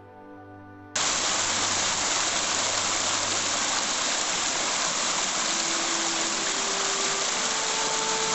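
Water rushing out of a pond and tumbling over rocks down a small stream channel: a loud, steady rush that cuts in suddenly about a second in, replacing quiet orchestral music. Faint music notes come back under the water near the end.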